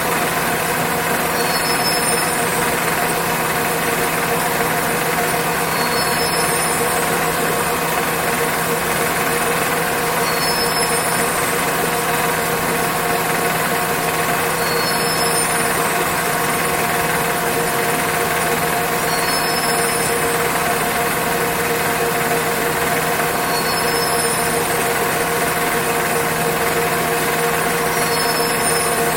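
Textile warping machine running steadily, a constant mechanical drone made of several steady tones, with a short high-pitched sound recurring about every four seconds.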